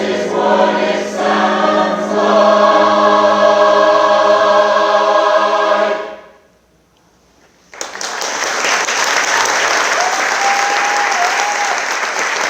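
A choir sings a final held chord that fades away about six seconds in. After a short hush, audience applause breaks out suddenly and continues.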